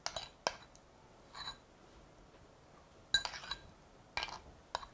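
Spoon and dishes clinking: a handful of light, scattered clinks and taps as egg-coated tofu patties are spooned from a bowl of egg wash into a frying pan.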